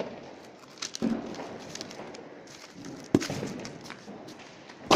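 A few scattered sharp knocks and pops from a smoking, brick-weighted box of spent firecrackers as a sandaled foot nudges it; the sharpest pop comes about three seconds in.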